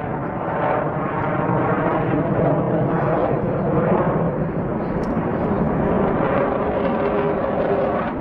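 Fighter jet engine noise, loud and steady throughout.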